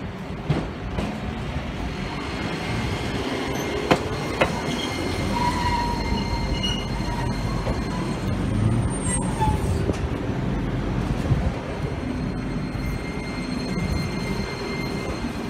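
Iyotetsu streetcar rolling in and passing close by, its wheels rumbling on the street-running rails. There are a couple of sharp clacks about four seconds in, then a brief thin wheel squeal in the middle as it goes by.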